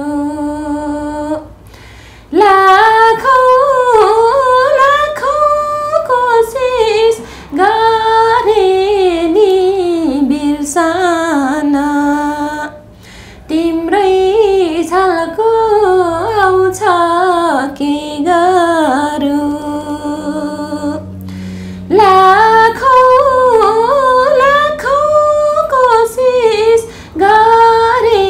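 A woman singing a slow Nepali song solo, in long drawn-out phrases with wavering held notes, broken by brief pauses for breath.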